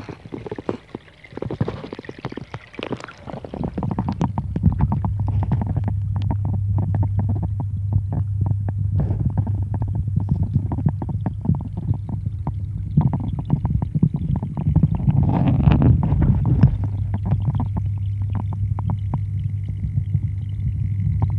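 Garden pond waterfall splashing. About four seconds in, the microphone goes underwater and the sound turns muffled: rumbling and crackling over a steady low hum.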